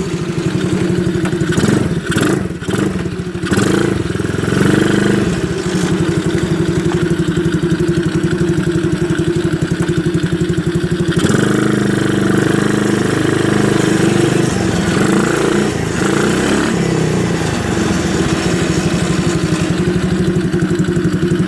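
The 110cc four-stroke single-cylinder engine of an X7 pocket superbike running, with its note changing a few times as the revs shift. There are a few brief knocks early on.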